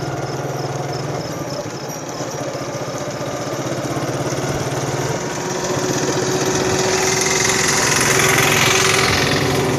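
Small motor-vehicle engine running steadily, growing louder past the middle as a rushing hiss builds and peaks near the end.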